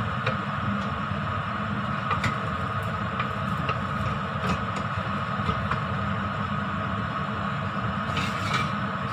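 Steady mechanical hum with a low rumble, with scattered light clicks and taps from a hand working cooked rice in a stainless steel pot.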